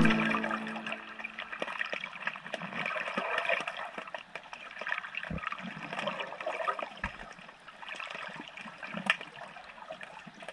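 Underwater sound picked up by a camera below the sea surface: a steady crackling, gurgling water noise. Two dull low thumps come midway through, and a sharp click near the end.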